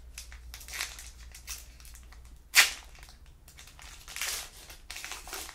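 Trading cards being handled and shuffled by hand: a run of soft rustles and slides, with one sharp, loud scrape about two and a half seconds in.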